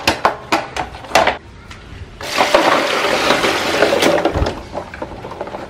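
Several sharp clatters of hard plastic toys knocking in a plastic basin. About two seconds in, water poured from a steel bowl splashes into the basin over the toys, loud for a couple of seconds and then easing.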